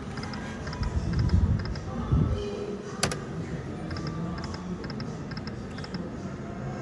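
Wicked Winnings slot machine clicking and ticking as its reels spin: short high electronic ticks in quick pairs, with one sharp click about three seconds in, over a low background din.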